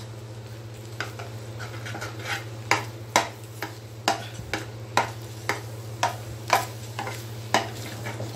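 Metal slotted spoon stirring thick ragi halwa in a metal pan, with sharp scrapes and knocks against the pan at roughly two a second from about a second in. The ghee has just gone in once the water cooked off. A steady low hum runs underneath.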